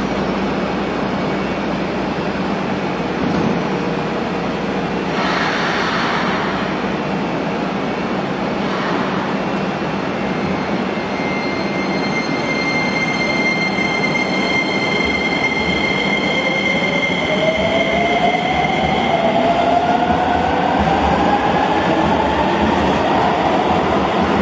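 Keisei 3000 series electric train at an underground platform: a sharp hiss of air about five seconds in, then a steady high whine from its VVVF inverter starting about halfway through. From about two-thirds of the way in, the motor whine rises in pitch as the train pulls away and picks up speed.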